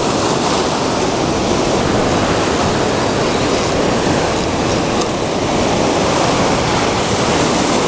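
Ocean surf breaking and washing over lava rocks: a steady, loud rush of water.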